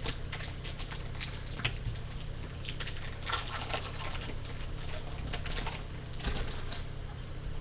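Foil-lined wrapper of a Bowman baseball card pack crinkling and tearing as it is pulled open by hand: a dense, irregular crackle, loudest about three seconds in and again about five seconds in.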